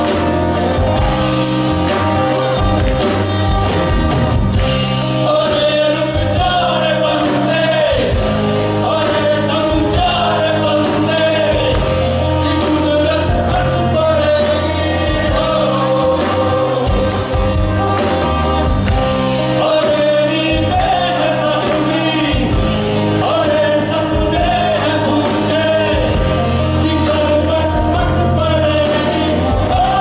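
A live band playing a song with a steady beat: a man sings the lead vocal over electric bass guitar.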